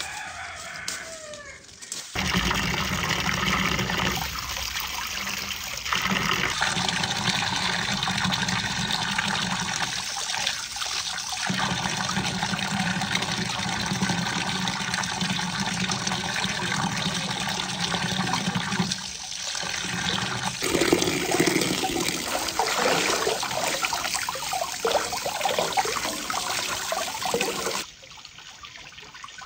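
A strong stream of running water splashing onto a stone slab while bunches of leafy greens are rinsed in it. The splashing turns uneven near the end as the greens are shaken in the flow, then cuts off suddenly. A rooster's crow trails off in the first second or two.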